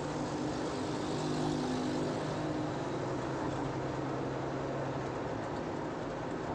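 Steady road and engine noise of a car driving along, heard from inside the cabin, with a low even hum that fades out about five seconds in.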